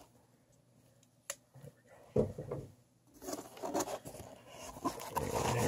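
A cardboard mailer box being opened by hand: a single light click, a short scrape of the lid flap, then rustling of the cardboard and the packing inside, growing louder near the end.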